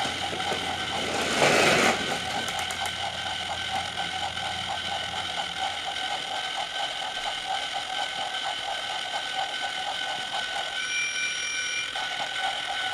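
Small electric toy-train motor giving off a steady buzz with a rapid flutter, with a brief loud rush of noise about a second and a half in.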